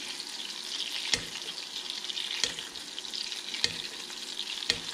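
Ribeye steak sizzling in melted butter in a stainless steel pan while it is basted, with a spoon clinking against the pan four times, about once a second.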